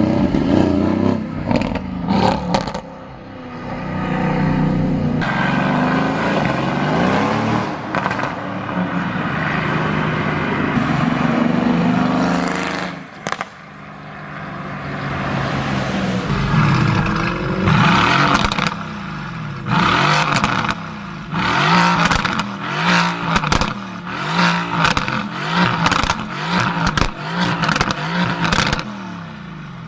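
Sports car exhausts revving up and down, with runs of sharp crackles and pops as the throttle is lifted, thickest in the second half.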